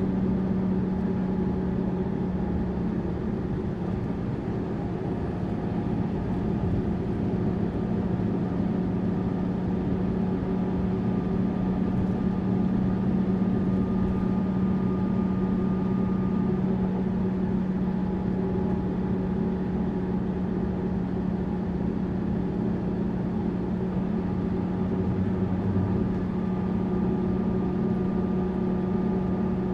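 Tourist bus running steadily: an even engine drone with a strong low hum, and fainter higher tones that come and go.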